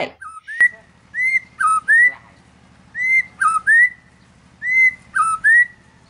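White-rumped shama (murai batu) singing: a clear whistled phrase of an arched note, then a short lower note sliding up into a high held note, repeated three times.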